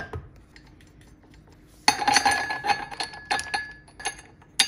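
Metal parts of a stand-mixer meat grinder attachment clinking together as the perforated steel grinding plate is fitted into the grinder housing. A run of ringing metallic clinks starts about two seconds in, and a sharp click comes near the end.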